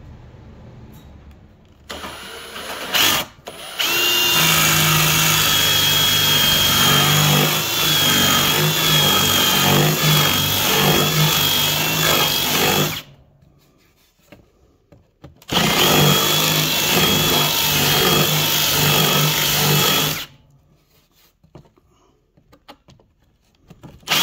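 Power drill running a 1 5/8-inch hole saw, cutting the pipe hole through a panel about 5 mm thick. A brief start about two seconds in, then two long runs of steady whine separated by a short pause.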